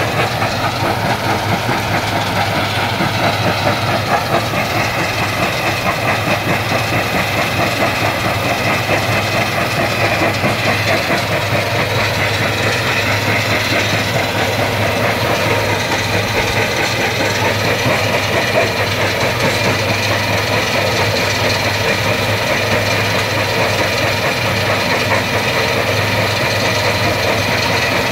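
Stone crusher plant running steadily: a constant machine drone with a dense, continuous rattle of rock.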